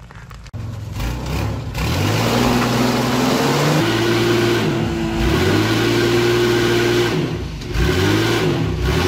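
A 4x4 off-road vehicle's engine revving: the pitch climbs for a few seconds, drops sharply, then is held high with two short dips as the throttle is eased and opened again.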